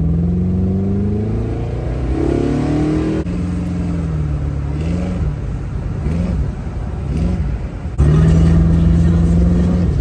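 LS3 V8 in a 1972 Chevrolet Impala convertible, heard from the open cabin while driving, its misfire repaired. The engine note rises as the car accelerates, swells and eases a few times, then holds a louder, steady pitch near the end.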